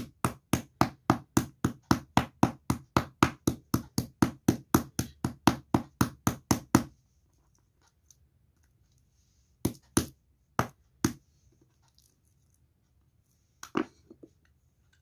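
Wooden meat mallet pounding a raw boneless chicken fillet on a wooden cutting board to tenderize it, about four even strikes a second for some seven seconds, then it stops. A few scattered knocks follow later.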